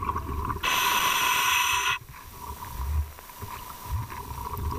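Scuba diver breathing through a full face mask regulator: a hissing inhalation about half a second in that lasts over a second, then a low bubbling rumble of exhalation, with a faint steady tone throughout.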